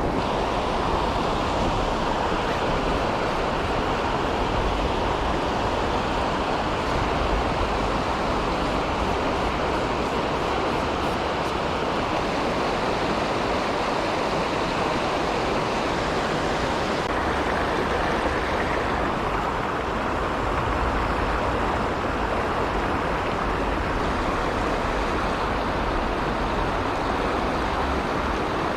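Mountain stream water rushing steadily over rocks, with a low rumble.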